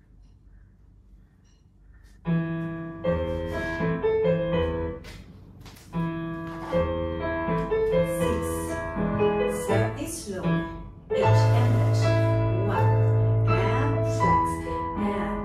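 Piano accompaniment for a ballet barre exercise, played through a small portable speaker, starting suddenly about two seconds in after a moment of quiet room tone.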